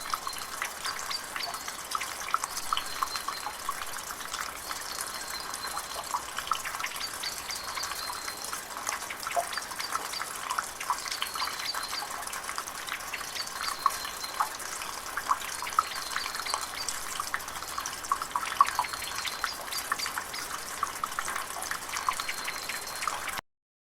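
Water dripping: many small irregular drips plinking over a light hiss, with a faint high note recurring every few seconds. It cuts off suddenly near the end.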